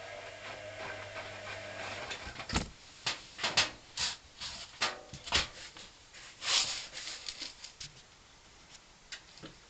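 Hoover CA232 washing machine in mid-wash: the drum motor hum stops about two seconds in, then comes a run of irregular splashing and thudding sounds from the water and laundry in the drum, dying away near the end.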